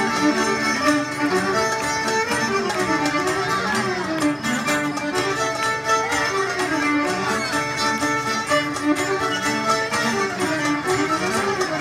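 Greek traditional folk dance music (dimotika) with a violin carrying an ornamented melody over plucked-string accompaniment.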